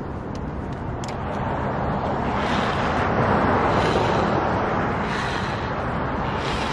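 A car passing on the road, its rushing tyre and engine noise swelling to a peak mid-way and then fading, with a few light handling clicks near the start.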